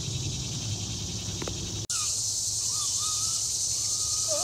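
Steady shrill chorus of crickets and other insects, with a low rumble underneath until an abrupt cut about two seconds in. After the cut come several short whistled calls that rise and fall.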